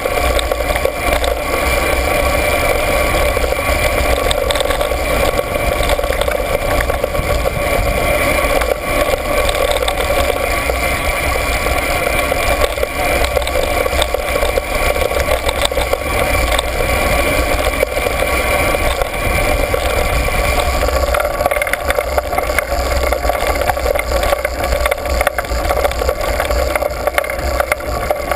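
Steady mechanical drone with wind rumbling on the microphone and rattling over the bumps, from a ride down a dirt road. The highest part of the drone fades about three-quarters of the way through.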